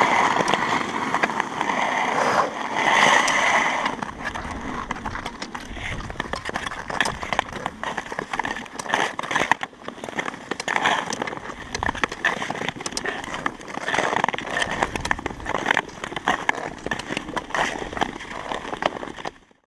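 Long touring-skate blades hissing and scraping over natural lake ice in repeated strokes, with sharp clicks of pole tips striking the ice. Two louder hissing strokes come in the first few seconds, then quieter strokes and frequent clicks.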